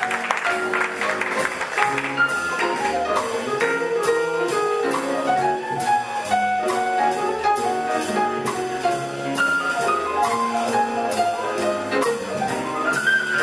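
Live jazz combo playing an instrumental break in a swing tune: drum kit keeping a steady cymbal beat under upright bass and piano.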